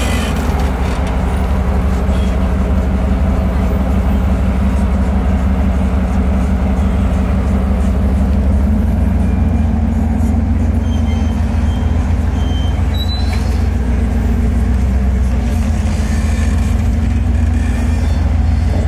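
Off-road vehicle engine running steadily at low revs during a rock crawl, with a shift in its note about nine seconds in.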